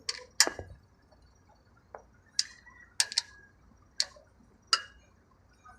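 Sharp metallic clinks of loose engine parts being handled, about eight at uneven intervals.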